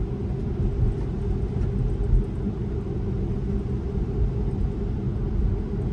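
Tyre and road noise inside a moving Tesla electric car's cabin on wet pavement: a steady low drone with no engine note.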